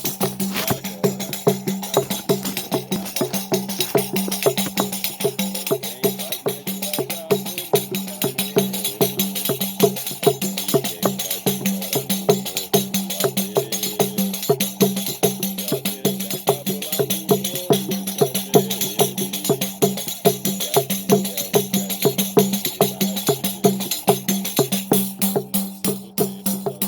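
Music with fast, busy percussion strokes over a steady low held tone and a moving melody; it thins out near the end.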